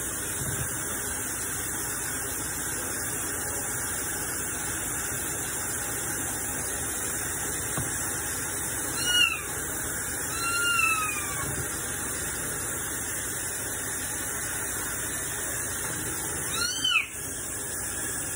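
Kitchen tap running steadily onto a wet kitten in a stainless steel sink, while the kitten, about nine weeks old, gives three high mews: a short one about halfway through, a longer rising-and-falling one a second or so later, and a third near the end.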